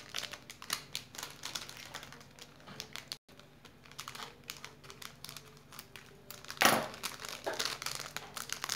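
Plastic lollipop wrapper crinkling and clicking as it is handled and cut open with scissors, with a louder crackle about two-thirds of the way through.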